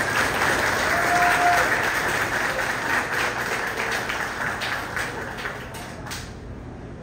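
Guests applauding, with many hands clapping together. The applause dies away about six seconds in.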